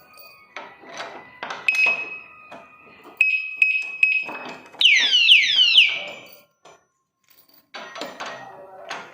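Battery alarm padlock being handled, with clicks and knocks, sounding a steady high beep and then, about five seconds in, a quick run of falling siren chirps; handling clicks start again near the end.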